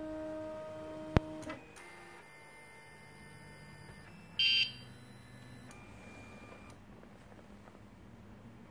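Prusa i3 MK2S 3D printer set up as a pen plotter, standing idle: a steady thin electrical whine from the machine, a single sharp click about a second in, and a short high beep from the printer's buzzer about four and a half seconds in.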